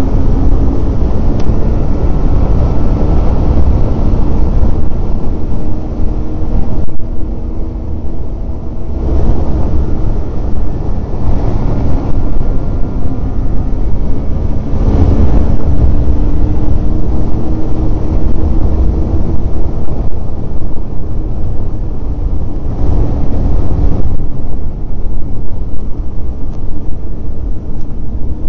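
Snowmobile engine running steadily at trail speed, its drone shifting slightly in pitch now and then, over a heavy low rumble from the moving sled.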